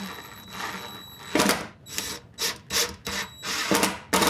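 DeWalt cordless impact driver driving screws through a steel bracket into a cabinet door. A steady motor whir gives way, about a second in, to a series of short, loud bursts as each screw is driven home.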